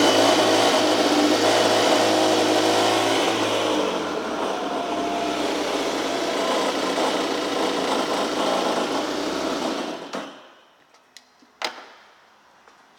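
2004 Polaris MSX 110 jet ski's four-stroke engine running just after starting, its pitch dropping about four seconds in as it settles to a lower idle. It is shut off about ten seconds in, followed by a single click.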